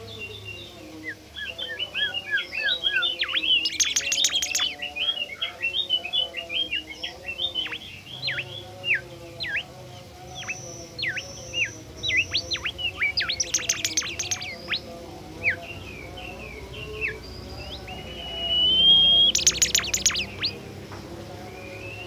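Bimoli (golden whistler) singing: a long run of quick, sliding whistled notes, broken by three loud, sharp chattering bursts and a short held whistle near the end.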